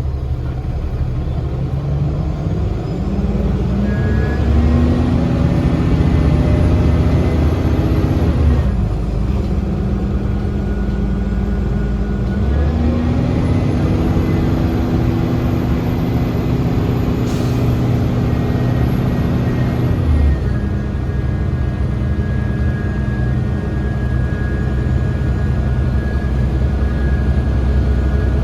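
Cummins ISL diesel engine and Voith automatic transmission of a 2010 Gillig BRT transit bus, heard from inside the bus as it pulls away and accelerates. The engine note climbs twice, a few seconds in and again about halfway, and drops in pitch after each climb, then holds steady. A high whine rises along with the engine.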